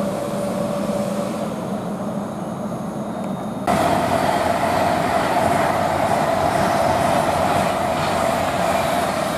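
Avanti West Coast express train passing through the station without stopping, a steady rush of train noise with a held whine. It gets suddenly louder about four seconds in.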